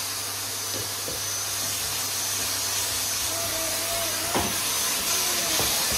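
Vacuum cleaner running steadily: a loud hiss of rushing air over a low hum, with a short knock about four and a half seconds in.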